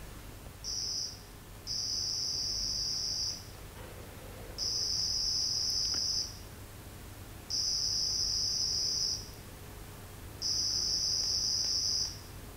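Loudspeaker playing an OFDM acoustic data transmission: a short burst, then four bursts of high-pitched hiss, each about a second and a half long, about a second apart. These are four blocks of data, each beginning with a pilot sequence, sent to a microphone across the room.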